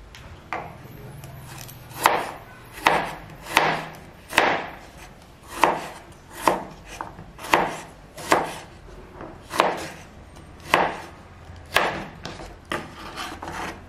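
Kitchen knife slicing kale stems on a wooden cutting board: a steady run of about a dozen crisp cuts, roughly one a second.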